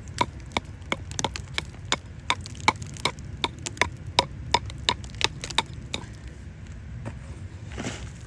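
A hand digging tool striking hard, compacted flood-deposit gravel in quick, sharp, ringing strikes, about two to three a second, which stop about six seconds in.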